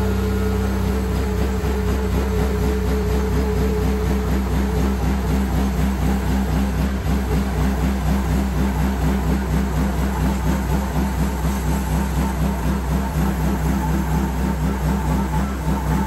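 Gas engine of a Hud-Son Oscar 52 band sawmill running under load while its blade cuts along a large sugar maple log: a steady engine drone with a fast, even pulsing beat.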